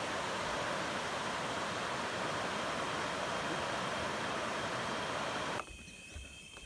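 Steady rushing of river water over rocky rapids, an even hiss with no pitch. It cuts off suddenly near the end, leaving quieter surroundings with a faint, steady high tone.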